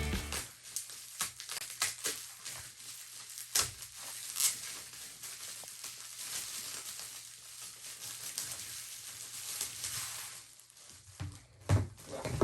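Packaging crinkling and rustling as it is handled and opened, with many sharp crackles, and a few knocks near the end.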